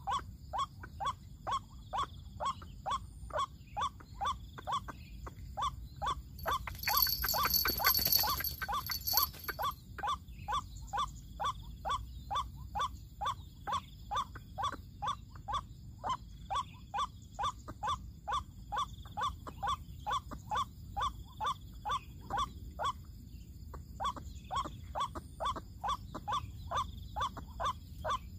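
White-breasted waterhen calls: a monotonous run of short, repeated notes, about two and a half a second, with a brief pause near the end. A louder rushing noise covers them for about three seconds, starting some seven seconds in.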